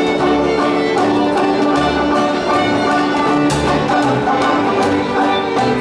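Instrumental string music with a fiddle playing sustained notes over a low bass line.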